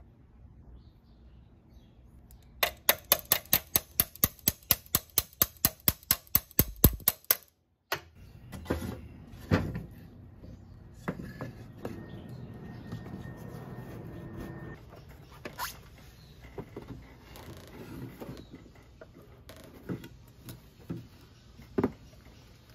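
A ratchet wrench clicking rapidly and evenly, about five clicks a second for several seconds, working the front axle nut of a Honda PCX scooter. Then wooden boards knock and thump as they are stacked on a metal bench.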